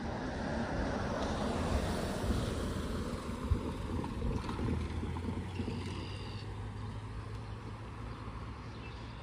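Amtrak passenger train rumbling past on the rails. The higher rushing noise dies away about two and a half seconds in, leaving a steady low rumble that slowly fades.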